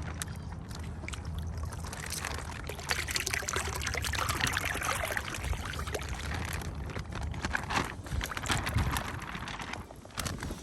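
Water with live fish being poured out of a container into a pond: a continuous splashing pour that dies away about ten seconds in.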